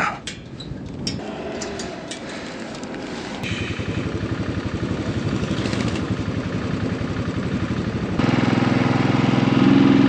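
Motorcycle engine running with a fast, even pulse. The sound changes abruptly and gets louder about three and a half seconds in, and again about eight seconds in.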